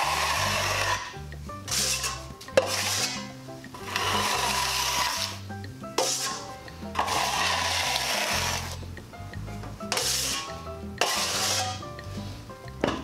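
Metal drywall taping knife scraping joint compound across a plaster wall and along the edge of a mud pan, in repeated strokes about a second long. A few sharp taps of the knife against the pan come between strokes.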